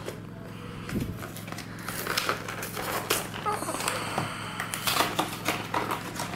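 A cardboard trading-card deck box and its plastic-wrapped contents being opened and handled by hand: crinkling, tearing and small scattered clicks. Underneath runs a steady low hum, which the speaker takes for a water pump outside.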